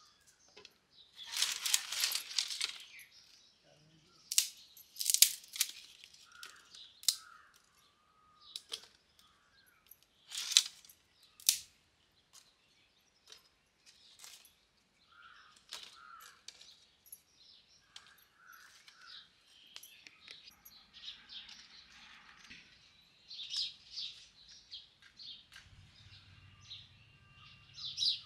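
Dry twigs cracking and clattering as they are laid into a clay wood-fired stove, in a handful of sharp bursts over the first dozen seconds. Birds chirp in the background.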